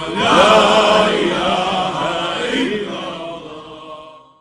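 Islamic dhikr chant sung by several voices in long, held melodic lines. It fades out steadily to silence near the end.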